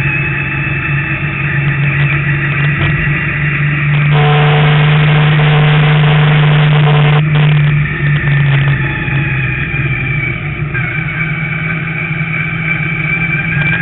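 Street Stock race car's engine heard on board during a practice lap, running steadily, then growing louder and fuller about four seconds in as it accelerates down the straight. About seven seconds in it drops back abruptly as the throttle is lifted for the next turn, and it runs steadily again.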